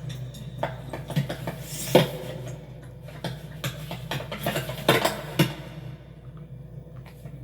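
Scattered metallic clinks and knocks over a steady low hum.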